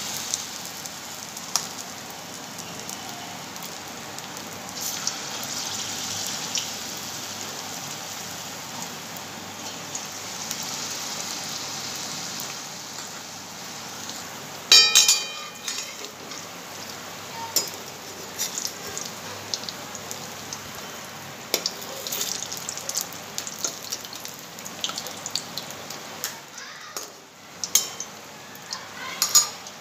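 Batter-coated egg pieces deep-frying in hot oil in a kadai, a steady sizzle with scattered pops and crackles. A sharp clink rings out about halfway through, and a few lighter clicks come near the end.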